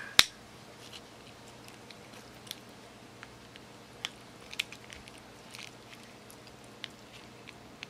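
Faint crackling and clicking from the cracked shell of a spiny lobster tail as fingers work underneath it, prying the shell away from the meat. A single sharp click comes just after the start.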